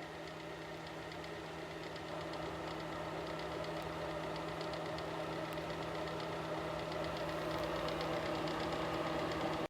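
Small ceramic electric space heater running, its fan giving a steady hum with a faint rapid ticking over it.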